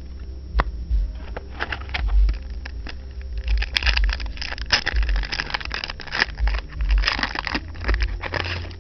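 Crinkling and crackling of a foil trading-card pack wrapper being handled and torn open, denser and louder from about halfway in.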